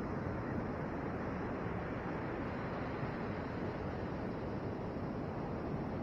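Steady rush of ocean surf breaking on the beach, mixed with wind.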